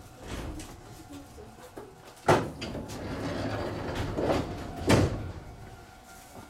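Sliding doors of a Shizuoka Railway 1000 series train working: two heavy thuds about two and a half seconds apart, with a rushing noise between them.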